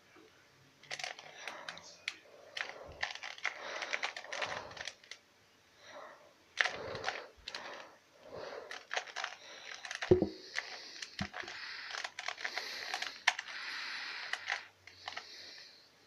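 Plastic 2x2x2 Rubik's cube being turned quickly by hand during a solve: rapid clicking and clacking of the layers, in bursts with short pauses between them.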